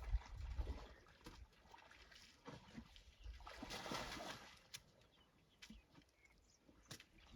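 Faint splashing of water from bathing elephants, with a louder swell of splashing about four seconds in.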